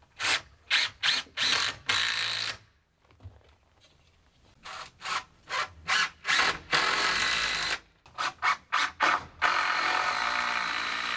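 Cordless drill driving screws into a wooden board: a few short trigger bursts followed by a longer steady run, three times over, with a pause of about two seconds between the first and second screw.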